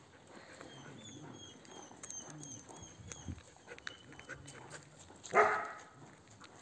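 A dog barks once, loud and sharp, about five seconds in.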